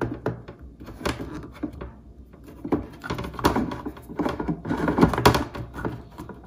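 Plastic filter cartridge knocking and scraping against the plastic filter socket of an AquaTru countertop water purifier as it is pushed down and worked into place: a run of short clicks and clunks, busiest in the second half.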